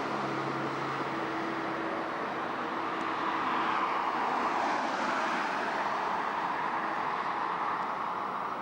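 Road traffic passing close by: a continuous rush of tyre and engine noise that swells and eases as vehicles go past, with a low engine hum fading out a couple of seconds in.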